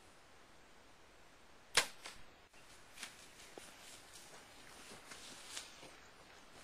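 A single sharp shot from a hunter in a tree stand, about two seconds in, followed by a few faint clicks and rustles.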